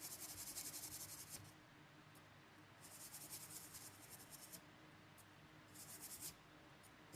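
Faint, high scratchy rubbing on the MacBook Pro's logic board in four short bouts, each made of fast fine ticks: a tool or brush working across the board during the repair.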